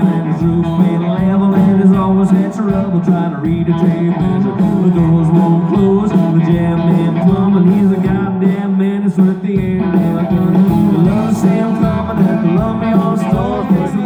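Live country band performing: electric guitars and upright bass, with a man singing lead.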